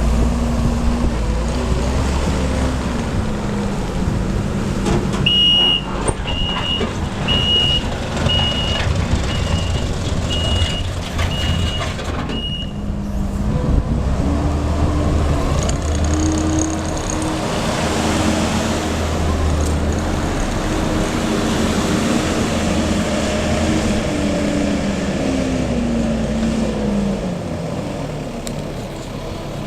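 Kubota SVL75 compact track loader's four-cylinder turbo diesel running under load, its pitch rising and falling with throttle. About five seconds in, its reverse alarm beeps about once a second for some seven seconds.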